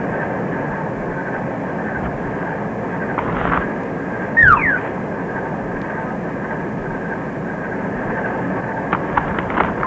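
Cartoon soundtrack effects over a steady rushing noise: a quick falling whistle about halfway through and a few sharp clicks near the end.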